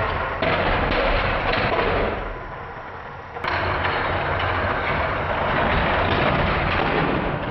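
Battery-powered Plarail toy trains running fast along plastic elevated track, a dense rattling clatter of motor and plastic wheels and cars. The cars clatter as they derail and tumble off the track. The sound dips and then cuts back in abruptly about three and a half seconds in.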